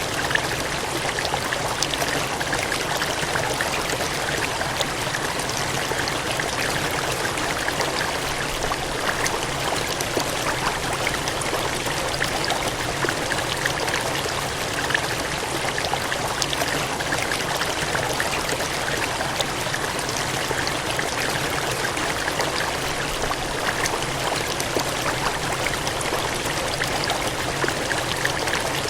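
Gushing, cascading water: a steady, dense rush with small splashes and crackles throughout.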